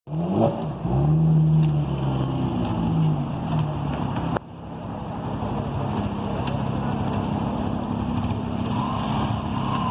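Porsche engine running with a loud rumble, revving up briefly at the start and then holding a fairly steady note. About four seconds in the sound cuts abruptly to a quieter, steadier engine note that slowly grows louder.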